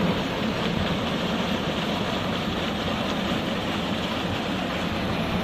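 Tubewell water gushing from a discharge pipe and splashing into a concrete tank, a steady rushing noise.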